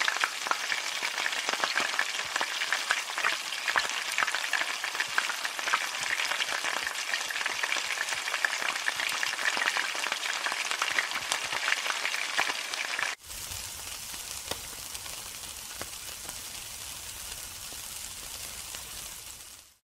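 Hot oil frying in a wok over an open flame: a dense, steady sizzle full of crackles and pops. About 13 seconds in it cuts to a quieter, steadier hiss with a low rumble beneath, meat skewers sizzling on a grill.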